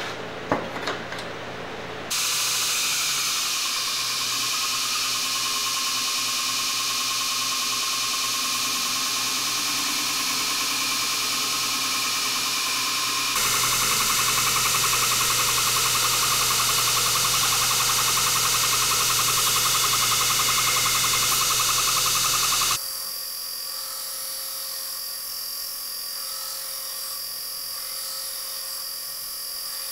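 Two knocks as the heat-treating oven door is shut, then an Ameribrade belt grinder running steadily, its belt grinding a steel knife blade with a high-pitched hiss and whine. The grinding gets louder for a stretch in the middle and quieter near the end.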